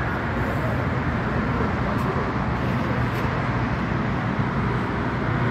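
Steady low vehicle rumble, a constant hum with a haze of traffic-like noise over it.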